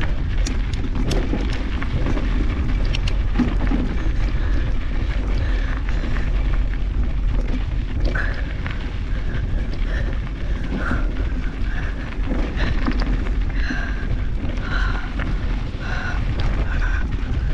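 Mountain bike descending a rough trail, heard from a handlebar-mounted GoPro: wind rumbling on the microphone under a steady rattle and clatter from the bike, with brief high squeals now and then, more of them in the second half.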